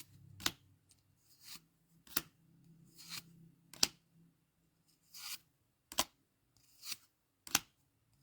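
Dragon Ball Z trading cards being handled one at a time from a freshly opened pack. Each card gives a soft slide followed by a sharp snap, five times, about every one and a half to two seconds.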